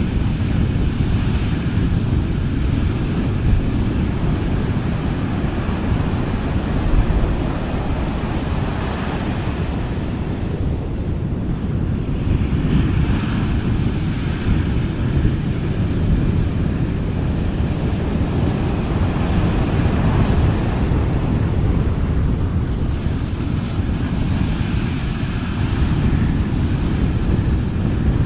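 Gentle sea waves washing onto a beach, the hiss of each wash swelling and fading every several seconds over a constant low rumble of surf and wind on the microphone.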